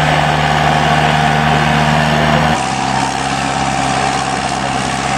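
Engine of a 250 hp Super Série pulling tractor running steadily at low revs. Its tone shifts abruptly about two and a half seconds in.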